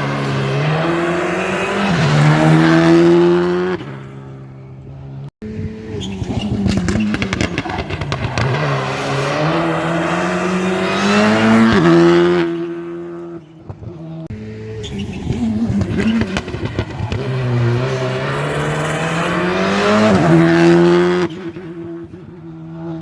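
Rally cars driven hard on a special stage, three passes one after another: each engine's pitch climbs and drops through gear changes as the car goes by, with short dips between passes.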